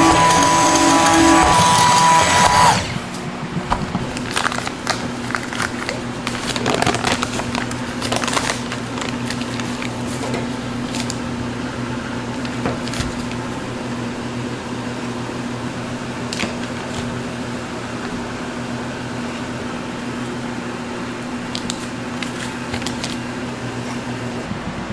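Music that stops about three seconds in, then a steady machine hum with scattered light clicks and knocks.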